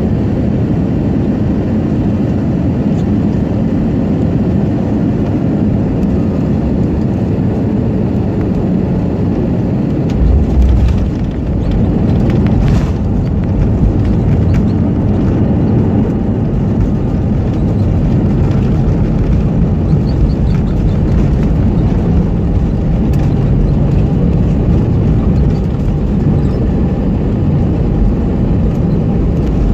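Cabin noise in an Airbus A320neo during landing: a steady, loud rumble of engines and airflow. About ten seconds in comes a short, heavy low jolt, the touchdown, and the rumble carries on slightly louder afterwards as the jet rolls out on the runway.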